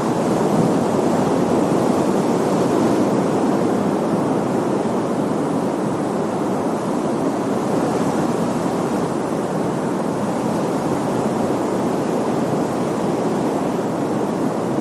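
Ocean surf: a steady rushing wash of large breaking waves with no single distinct crash.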